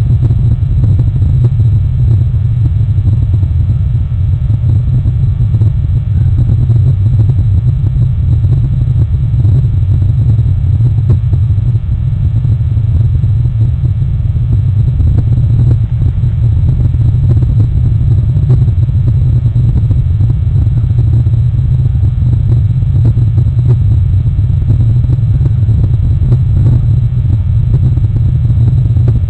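Loud, steady low rumble with a fainter hiss above it, unchanging throughout.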